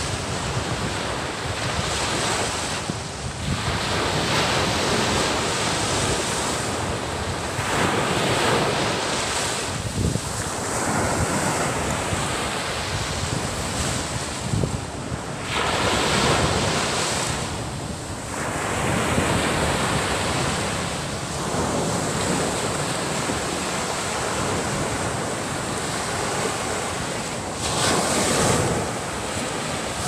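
Sea waves breaking on a sandy beach and washing up the shore, a surge of surf every few seconds over a constant wash.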